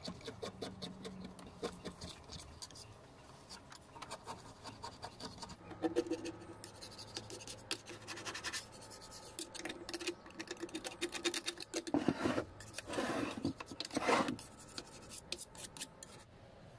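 Flat scraper blade scraping old paint and grime off the metal bed of a Singer 1288 sewing machine in quick, repeated strokes, with a few louder, longer scrapes about three-quarters of the way through.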